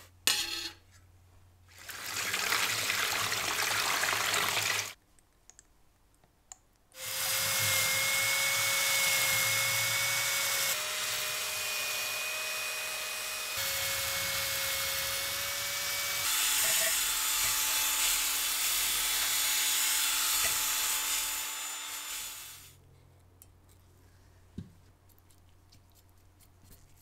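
Power tool spinning a rotary brush that scrubs a foam-covered stove part: a steady motor whine over a scrubbing hiss, the whine settling at a slightly different pitch three times before it stops. A shorter hissing stretch comes before it, and only faint light ticks follow.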